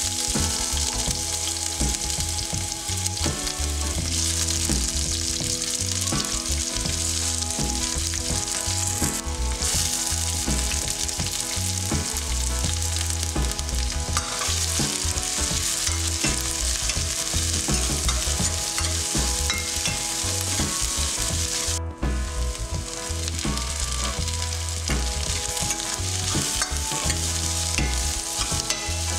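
Ginger, garlic, sliced onions and carrot sticks sizzling in hot oil in a stainless steel kadai, with a spatula stirring and scraping the pan. The sizzle is steady and briefly drops out about three quarters of the way through.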